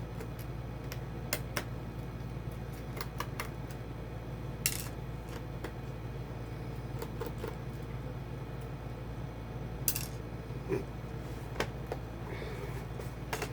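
Scattered light clicks and taps of small hard objects being handled, with a couple of short scrapes, over a steady low hum.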